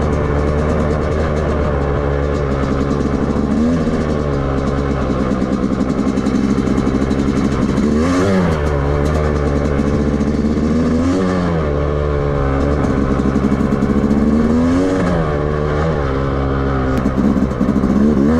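2023 Yamaha YZ250's single-cylinder two-stroke engine running at light throttle. The revs climb slowly and then drop off, about five times. It is being tested for hesitation below the point where the exhaust power valve opens, on a new fuel mix, and is judged to still need carburettor adjustment.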